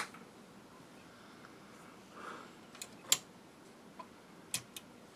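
A few sharp clicks and taps from hands handling the opened receiver's chassis, the loudest about three seconds in and two close together near the end. No test tone comes from the speakers: the receiver is giving no output.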